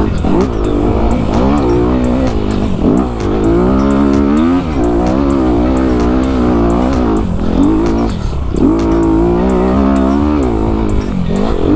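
2019 Honda CRF250RX dirt bike's single-cylinder four-stroke engine under throttle on a climb, its pitch rising and then dropping sharply again and again as the rider revs it and shifts.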